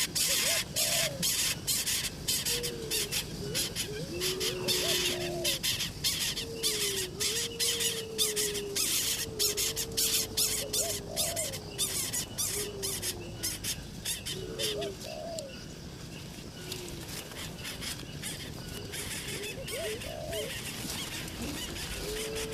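A bird giving repeated low calls, each a short rising note and a level or falling tail, over a dense crackling that fades out about two thirds of the way through.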